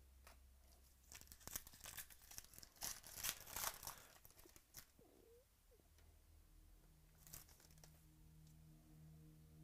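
Foil wrapper of a 2018 Illusions football card pack being torn open and crinkled by hand. A run of sharp crinkles and tears starts about a second in and lasts a few seconds.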